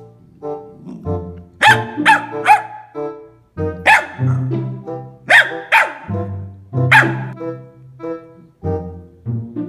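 Pembroke Welsh corgi puppy barking in short, sharp yaps, about seven of them in clusters, over background music with a repeating bass line.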